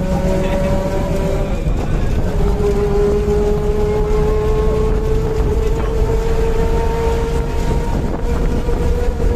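Bus engine and road rumble heard from inside the moving bus, with a steady whine that slowly rises in pitch as the bus gathers speed.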